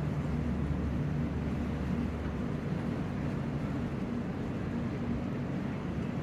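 Steady low drone of marine engine machinery, with several level hum tones over a noisy rumble that does not change.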